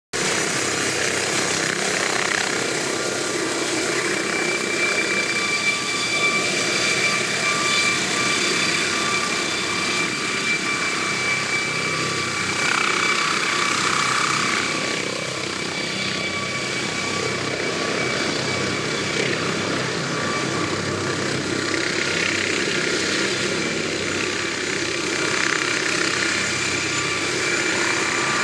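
MD 902 Explorer helicopter lifting off and climbing away: its twin turbines give a steady high whine over the noise of the rotor.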